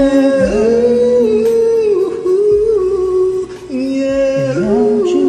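A man singing a slow R&B ballad along to a karaoke backing track, holding long notes that slide between pitches, with deep bass beats underneath.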